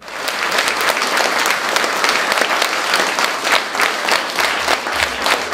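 Concert audience applauding, a dense clatter of many hands clapping that starts abruptly.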